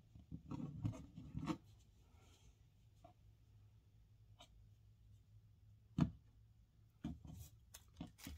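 Handling noises of a tiny rubber sandwich-shaped eraser being pulled apart on a wooden table. Soft rubbing and scuffing near the start, then a few light taps and clicks, the sharpest about six seconds in.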